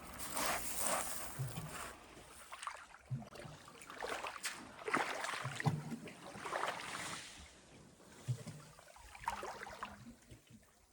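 Small waves of the calm Tyrrhenian Sea lapping and splashing in irregular surges about every second or so, with soft low knocks among them, fading near the end.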